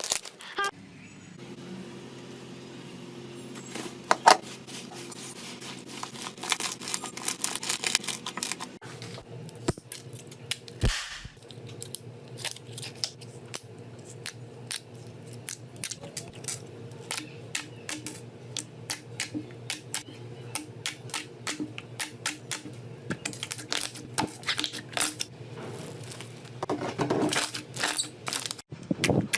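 Slime being squeezed and worked by hand, giving many small sharp clicks and pops in irregular clusters over a steady low hum.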